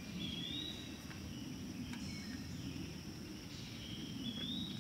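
Woodland ambience: a bird calls twice, short rising whistles near the start and near the end, over a steady low background rumble and a thin high steady hum, with a few faint ticks.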